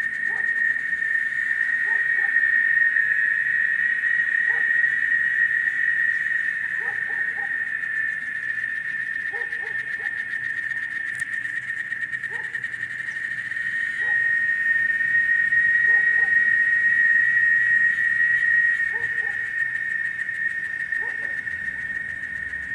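A chorus of cicadas keeps up a steady, high-pitched drone that swells louder twice and eases off again. Short low hoot-like calls from another animal come in every couple of seconds underneath it.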